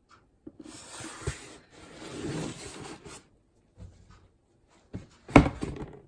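Handling noise: a rubbing, rustling scrape lasting a couple of seconds, then a few light knocks and one sharper knock near the end.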